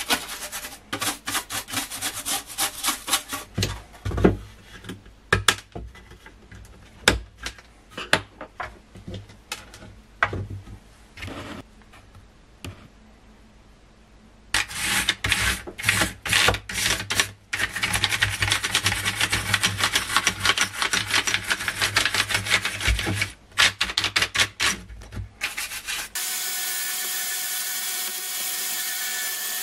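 Stiff-bristled brush scrubbing dirt and crust off the Amiga A600's plastic case in quick, rapid strokes, with scattered clicks and knocks of handled parts in between. Near the end a vacuum cleaner starts and runs steadily.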